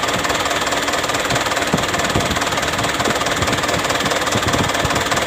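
Mitsubishi Canter truck's diesel engine running steadily at idle with an even clatter.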